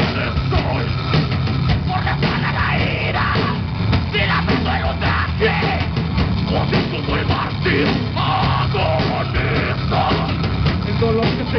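Live rock band playing loud: electric guitars and a drum kit, with a singer's voice into the microphone over them.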